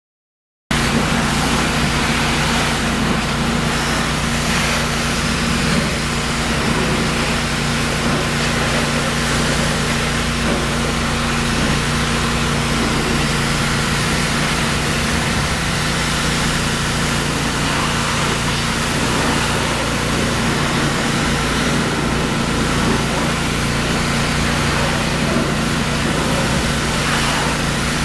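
A pressure washer running steadily: a steady engine drone under a continuous hiss of high-pressure water spray against a semi-truck tractor. The sound cuts in abruptly under a second in.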